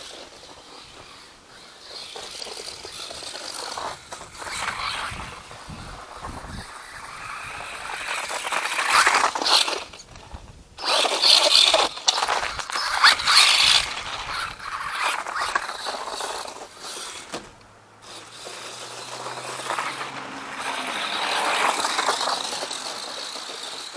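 Four-wheel-drive RC truck driving through snow, its tires churning and scraping through the snow in uneven bursts that swell and fade, loudest around the middle.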